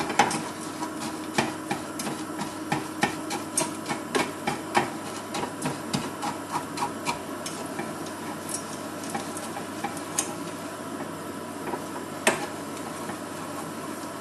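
Wooden spoon stirring melting sugar in a stainless steel saucepan for caramel, knocking and scraping against the pan. It knocks three or four times a second for the first half, then only now and then, over a steady low hiss.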